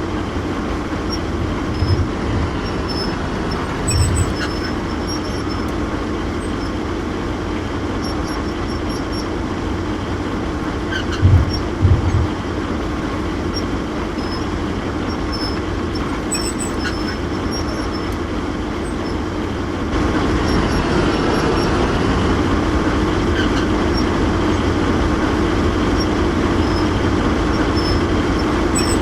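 Steady vehicle rumble with a few short low thumps, getting louder about twenty seconds in.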